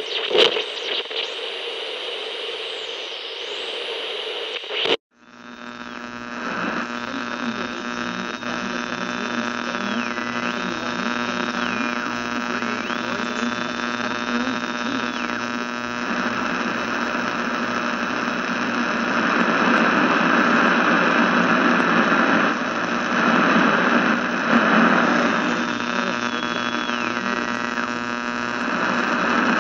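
Radio static sound effects. For about five seconds there is hiss with faint sweeping high whistles. It cuts suddenly into a longer stretch of static over a steady buzzing hum, with a high whistle that slides up and down between pitches several times.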